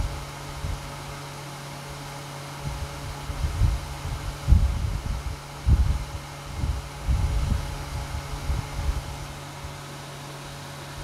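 Marker writing on a whiteboard, heard as irregular soft low bumps and rubs as each stroke is drawn, over a steady low electrical hum.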